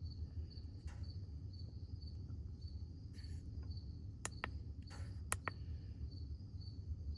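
Crickets chirping steadily in a high, evenly pulsing trill over a low background rumble. A few sharp clicks come about a second in and twice more around the middle.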